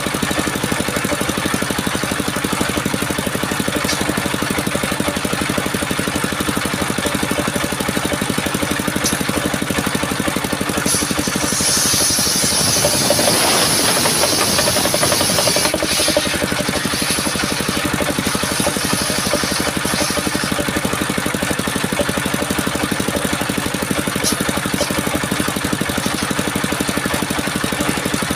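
Engine of a mobile circular sawmill running steadily. About eleven seconds in, a loud high hiss of the saw blade cutting through coconut wood rises over it for some five seconds, then falls away to the engine alone.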